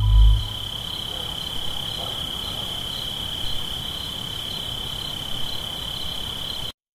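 Insect trilling steadily at a high pitch over a faint hiss, cutting off suddenly near the end.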